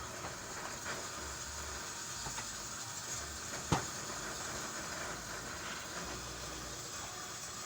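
Steady hiss with a single sharp knock a little under four seconds in, and a few faint ticks.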